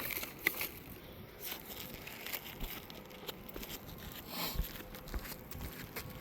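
Faint rustling and scattered light ticks of hands and tools working loose asphalt shingles on a roof.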